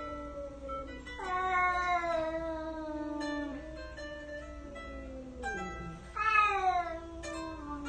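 A cat yowling in two long, drawn-out calls that slide downward in pitch, the second one, about six seconds in, shorter and louder, over guitar background music.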